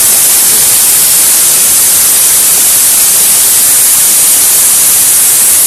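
Pressure cooker whistle blowing: a loud, steady hiss of steam venting through the weight valve, the signal that the cooker has come up to pressure.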